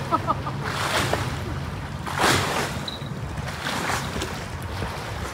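Wind buffeting the microphone in gusts over a steady low rumble, with a few faint short chirps near the start.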